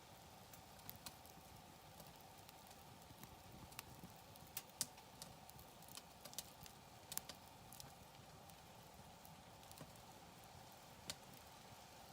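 Wood campfire crackling faintly: scattered sharp pops over a low steady hiss, with a cluster of pops in the middle.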